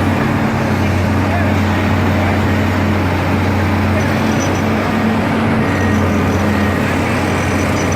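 Diesel engines of excavators running at a steady drone while digging, blended with city street traffic.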